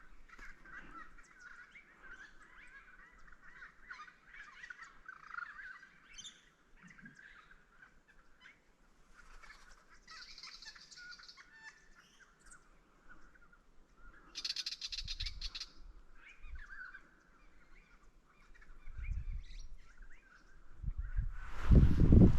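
Birds calling and chirping, with two short bursts of higher calls about ten and fifteen seconds in. A few low rumbles break in, the loudest near the end.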